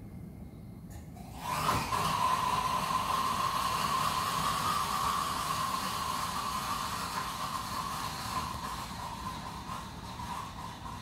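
A jelly baby burning violently in a boiling tube of molten oxidiser: a sudden loud hiss with a steady high-pitched scream on top. It starts about a second and a half in and slowly dies down.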